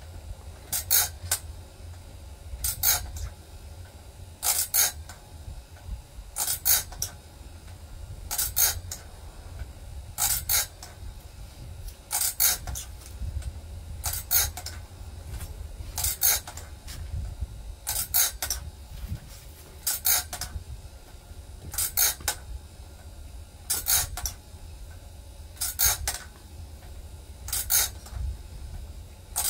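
Wood-Mizer BMS250 bandsaw blade sharpener working through a blade tooth by tooth: a steady motor hum with a short double grinding burst about every two seconds, one cycle per tooth as the wheel grinds it and the blade is indexed forward.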